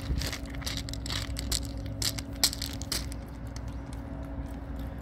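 Footsteps crunching on trackside gravel ballast, in irregular crunches, over a steady low hum.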